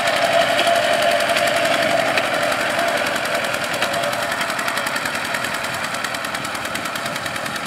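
Single-cylinder engine of a two-wheel walking tractor chugging steadily under load as its cage wheels work through a flooded rice paddy, growing slightly fainter as the machine moves off.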